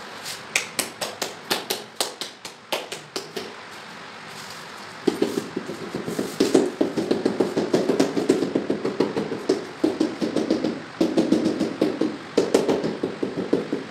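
Ceramic wall tile being tapped to bed it into its adhesive. Quick, sharp taps come several a second at first. From about five seconds in there is a denser, duller run of rapid mallet taps.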